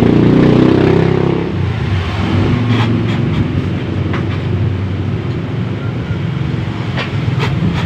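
Steady low mechanical rumble, like an engine or traffic running, louder for the first second and a half. A few sharp clicks of small parts and tools being handled sound over it.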